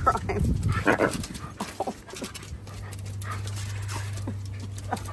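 A husky and a large white dog making short vocal sounds at each other in play, loudest in the first couple of seconds, with panting. A low steady hum sets in about halfway through.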